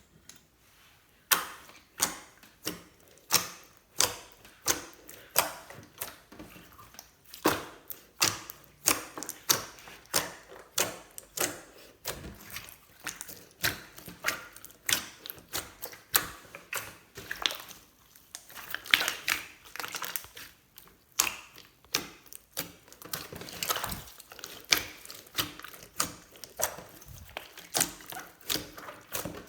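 Slime being squeezed, pressed and folded by hand, giving a long run of sharp clicking and popping sounds, roughly one or two a second.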